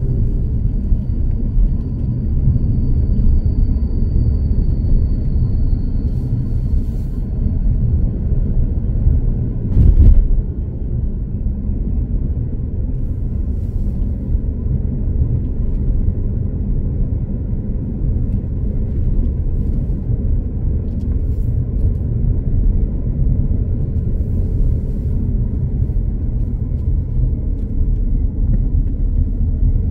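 Steady low rumble of a moving vehicle's engine and tyres on the road, with a faint thin whine in the first few seconds and one loud thump about ten seconds in.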